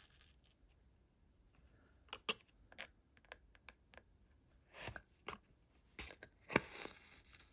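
Needle and thread passing through thin card during hand-stitching: faint scattered ticks and small scratches, with a longer rasp about five seconds in and the loudest one near the end as thread is drawn through the paper.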